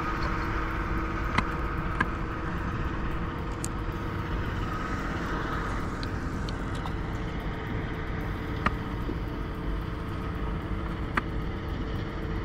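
Steady vehicle drone with a few steady hum tones, the motor and traffic noise of the city river. Four short sharp clicks cut through it, two close together near the start and two later on.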